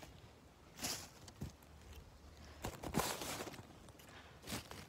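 A few short rustling scuffs as someone moves about in a nettle patch, handling freshly cut nettle stems.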